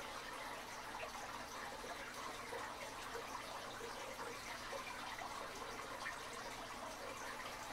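Steady faint background hiss.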